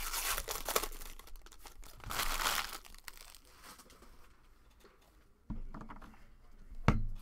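Foil wrapper of a trading-card pack torn open and crinkled, with the loudest tearing in the first second and again about two seconds in, then quieter handling of the cards and a sharp knock near the end.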